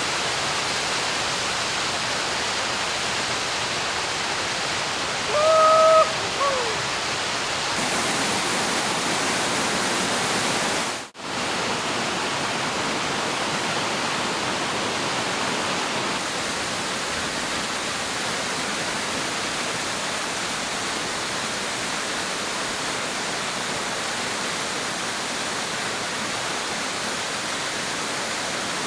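Steady rush of moving water, like surf or a stream. About six seconds in there is a short call with a slight falling end.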